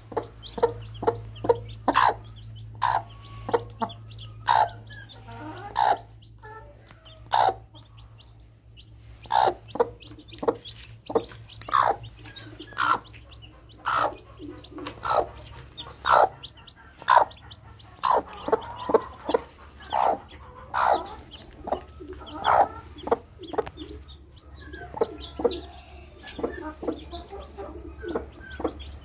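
Broody hen clucking to her newly hatched chicks, in short clucks roughly one a second in an irregular run.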